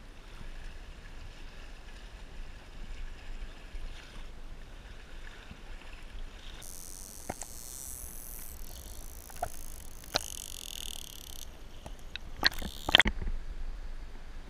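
Shallow water lapping and sloshing around a waterproof action camera held at the waterline. A stretch of hiss runs while it is under the surface, and several sharp splashes or knocks come near the end.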